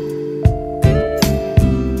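Background music led by guitar, with plucked chords struck every half second or so over sustained notes.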